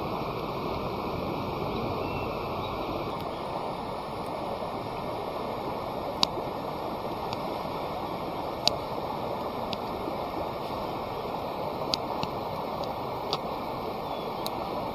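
Wood campfire crackling, with a handful of sharp pops scattered through the second half, over a steady rushing noise.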